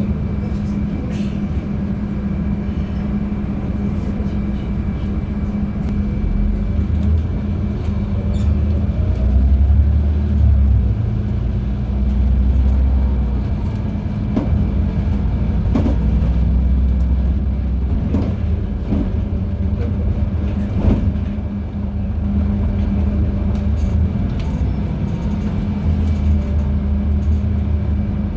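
LiAZ-5292.71 natural-gas city bus under way, heard from inside: a steady low engine and road rumble with a constant hum, swelling a few times, and scattered short knocks and rattles.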